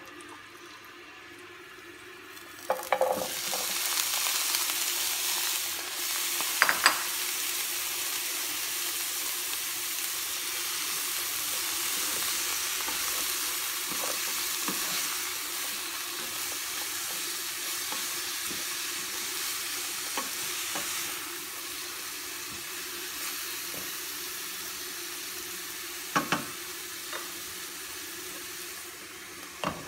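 Broccoli, carrots and green bell pepper sizzling in a hot frying pan: the sizzle starts suddenly about three seconds in as they go into the pan and keeps up steadily while they are stirred. A few sharp knocks against the pan come near the start and again near the end.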